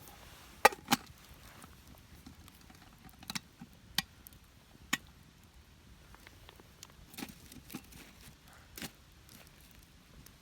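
A series of separate sharp knocks and clicks, about eight in all. The two loudest come close together under a second in, and the others are scattered through the rest.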